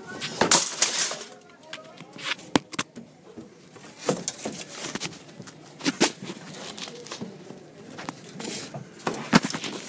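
Irregular clicks, knocks and rustling from a handheld camera being moved through a cramped, dark space, with indistinct voice sounds.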